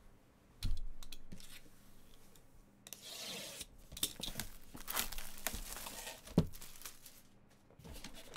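Plastic shrink wrap being torn and peeled off a sealed box of trading cards, crinkling and ripping, with knocks and rubs as the cardboard box is handled; the sharpest knock comes a little past six seconds in.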